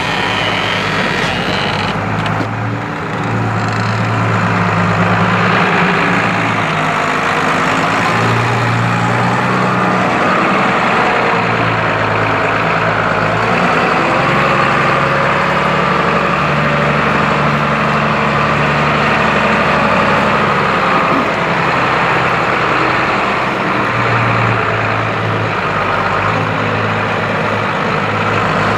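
New Holland M135 tractor's diesel engine working under load as it pulls a mouldboard plough through wet, heavy mud. It runs steadily, and its low hum swells and eases every few seconds.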